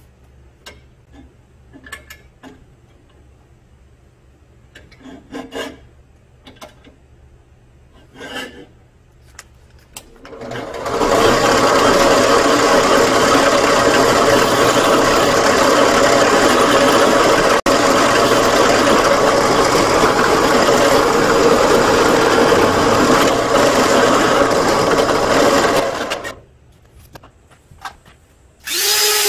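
A drill press running, its bit boring into a small titanium knife-guard plate clamped in a drill-press vise: a loud steady drilling noise for about fifteen seconds that cuts off sharply. Before it starts there are only light handling clicks and knocks, and near the end another drill starts up.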